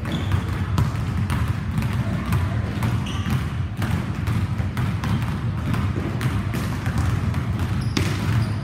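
Basketballs dribbling and bouncing on a hardwood gym floor, a quick run of bounces throughout, over a steady low hum.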